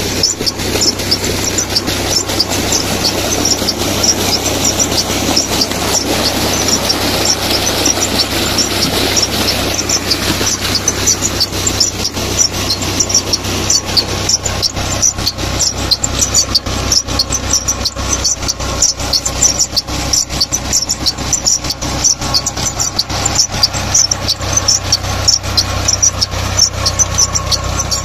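A New Holland tractor's diesel engine runs steadily, driving a belt-driven water pump through its PTO shaft, with a rapid, continuous ticking clatter from the pump drive. For roughly the first ten seconds, muddy water gushing from the pump's outlet pipe adds a rushing sound.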